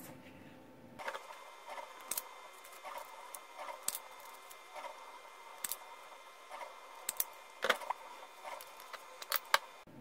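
Automatic wire stripper stripping insulation off thin hookup wire: scattered faint clicks and snaps as the jaws close and release, over a low steady hum that comes in about a second in.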